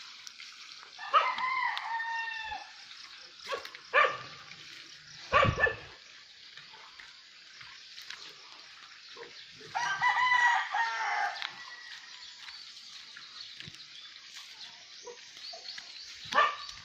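A rooster crowing twice: once about a second in and again near the middle, each crow about a second and a half long. A few short, sharp sounds come in between.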